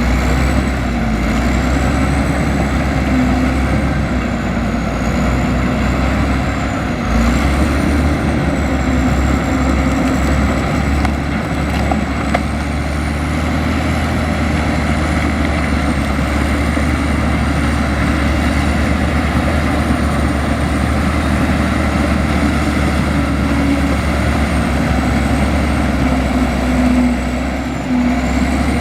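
Komatsu bulldozer's diesel engine running steadily under load, with a thin high whine that wavers up and down in pitch.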